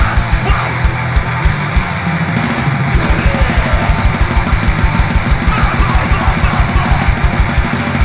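Hardcore punk band playing live, with drum kit and electric guitar. About three seconds in, the kick drum changes from scattered hits to a fast, even run of strokes.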